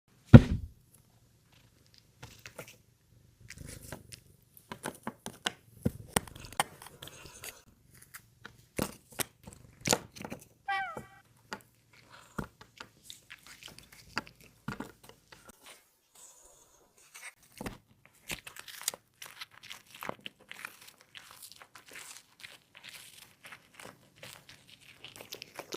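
A small pet crunching and chewing a freeze-dried treat, heard as many scattered short crunches and clicks. There is a thump at the very start and one brief, high call about eleven seconds in.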